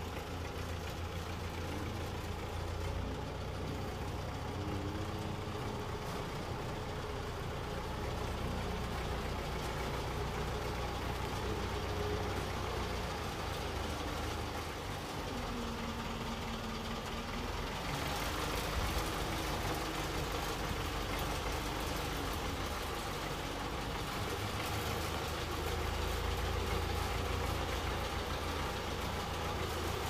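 JCB 3CX backhoe loader's diesel engine running steadily as the machine drives with boulders in its front bucket, growing a little harsher and louder about halfway through.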